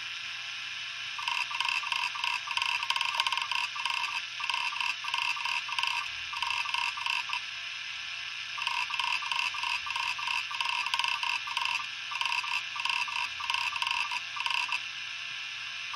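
Western Digital Caviar 2340 hard drive running with its cover off: a steady spindle whine under fast clicking chatter from the head actuator seeking across the platter. The chatter comes in two long runs with a short pause between them.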